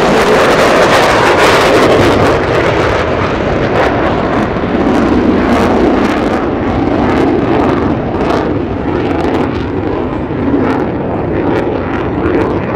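Loud, crackling jet noise from a USAF Thunderbirds F-16 Fighting Falcon in flight. The high hiss drops away after a couple of seconds and the noise eases slowly as the jet moves off.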